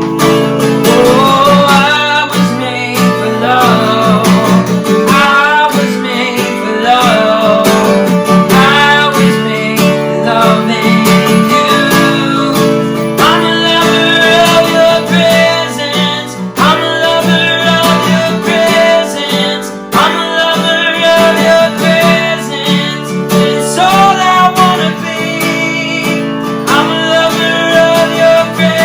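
Live worship music: strummed acoustic guitar chords with a voice singing a slow melody over them.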